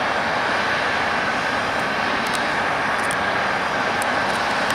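Jet engines of a three-engined Dassault Falcon business jet as it lands and rolls out on the runway: a steady rush of engine noise with a steady whine.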